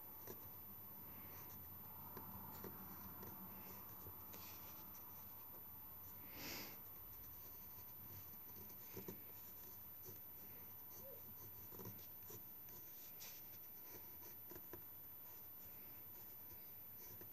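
Faint scratching of a graphite pencil drawing lines on paper, in short strokes with small taps, over a steady low hum.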